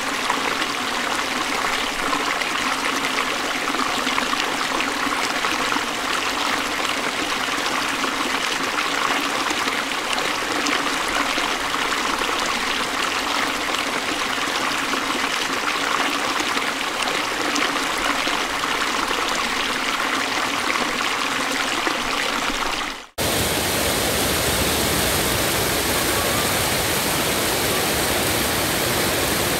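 Water rushing steadily over a weir's sloping concrete spillway. After a brief dropout about two-thirds of the way through, the rush comes back fuller and deeper.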